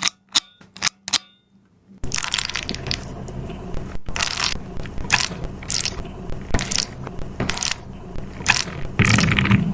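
A few sharp clicks, then a water-bead stress ball squeezed over and over, each squeeze a short burst of noise about once or twice a second. It gets louder near the end.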